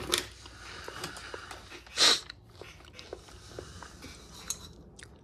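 Small crunching clicks of a person chewing a cheddar-filled cracker tube, with one short loud hiss about two seconds in.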